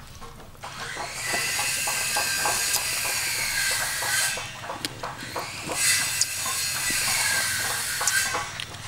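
A loud, steady hissing buzz, heard twice for about three and a half seconds each with a short break between, over faint scattered clicks.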